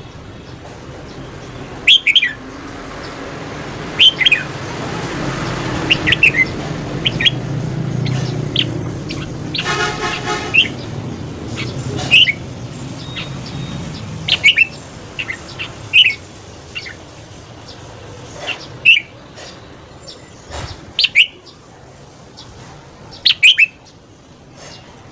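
Red-whiskered bulbul singing short, loud phrases about every two seconds. A vehicle passes behind it, swelling and then fading over several seconds, with a brief horn toot near the middle.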